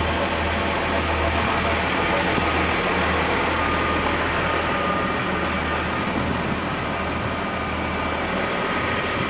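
A large vehicle's engine idling steadily with a continuous low hum.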